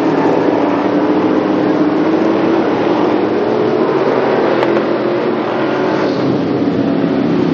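Several stock car racing engines running hard together as the pack goes around the oval: a loud, steady engine sound with slight rises and falls in pitch.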